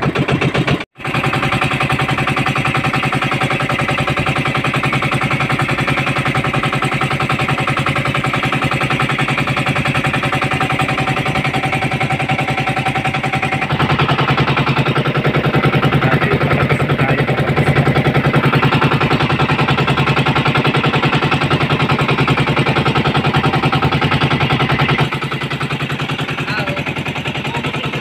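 Fishing boat's engine running steadily at low speed under way. It cuts out very briefly about a second in and runs a little louder from about halfway until near the end.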